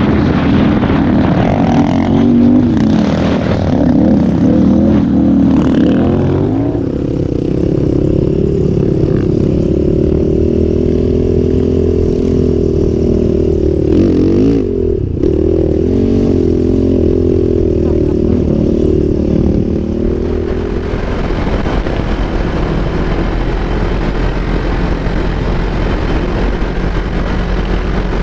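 Quad bike engine revving up and down as it is ridden over sand, with a rushing noise over the top. About two-thirds of the way in, the engine tone fades and a steadier rushing noise with a low hum takes over.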